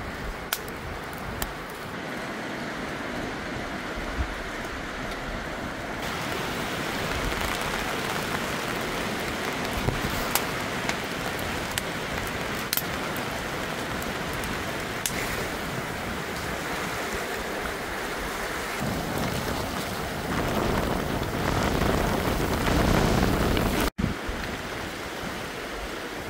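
Storm wind rushing through the trees with rain, a steady noise. A few sharp crackles come from the wood fire at the start. A stronger gust rumbles on the microphone from about nineteen seconds in.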